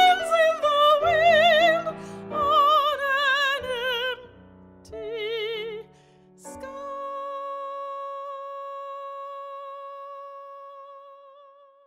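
Operatic soprano singing with wide vibrato over piano accompaniment. After a short phrase she holds one long high note, which fades away near the end.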